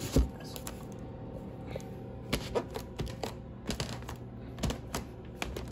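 Irregular light clicks and taps of a hand handling a homemade incubator box, over a steady low hum.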